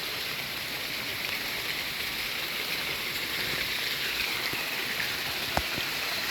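Steady rain falling, an even hiss, with one short knock about five and a half seconds in.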